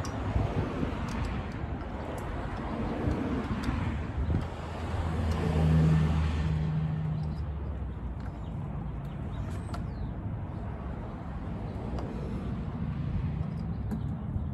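A motor vehicle passing, its engine sound swelling to a peak about six seconds in and then fading, over steady background noise with a few light clicks.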